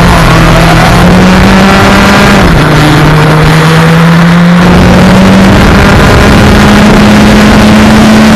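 Yamaha FZ1's inline-four engine running at high revs under a loud, steady rush of noise. Its note jumps up just before the start, dips about two and a half seconds in, then climbs steadily again before falling away at the very end.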